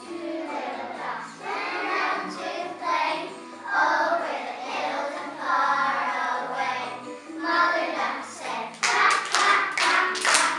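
A class of kindergarten children singing a song together, with a quick run of hand claps near the end.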